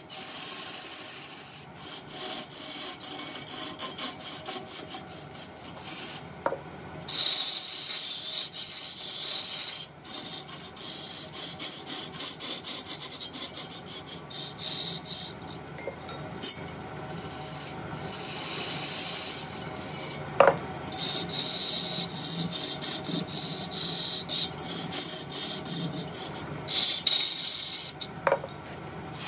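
Wood lathe turning: a cutting tool scraping and cutting into a spinning piece of wood, in repeated passes of hissing cuts a few seconds long with rough, rasping scrapes between them.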